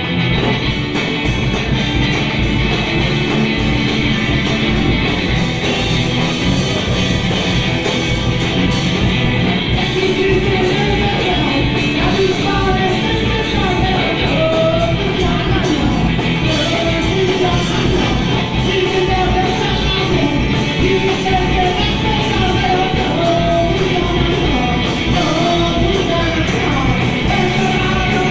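Punk rock band playing live, loud and full, with guitar, bass and drums; shouted singing comes in about ten seconds in.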